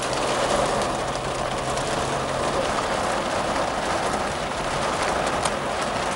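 Heavy rain and road traffic: a steady hiss of rain with a low, steady vehicle engine hum underneath.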